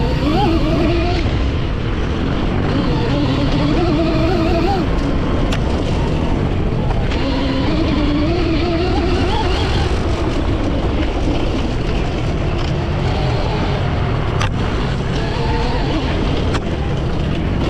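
Electric dirt bike's brushless motor and gear reduction whining while racing, the pitch rising and falling with speed, over a heavy rush of wind and riding noise. A few sharp knocks cut through, about five seconds in and twice near the end.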